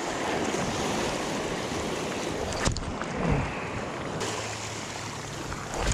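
Sea waves washing against shoreline rocks, with wind noise on the microphone.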